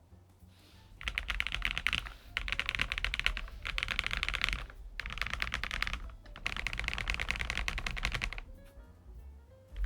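Typing on a Lofree Flow Lite low-profile mechanical keyboard with full-POM switches: fast runs of keystrokes in about four bursts, separated by short pauses, and a longer pause near the end.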